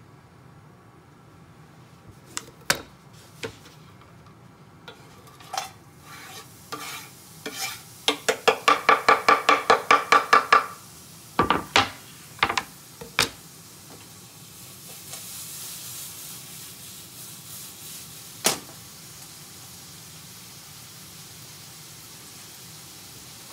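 Kitchen utensil sounds while fried rice ingredients go into the frying pan: scattered taps and clinks, then a quick run of about a dozen ringing strokes at roughly five a second, a few more sharp taps, and a soft sizzle afterwards.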